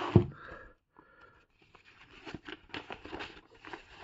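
Paper rustling and crinkling in bursts as a folded sheet is handled and opened out, with a single knock just after the start.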